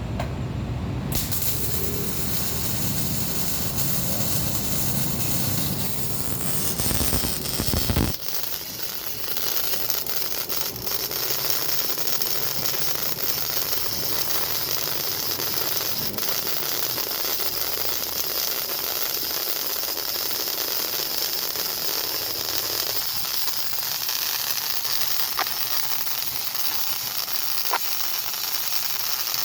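MIG (GMAW) welding arc crackling and hissing steadily as a bead is run. A deeper hum under it drops away about eight seconds in.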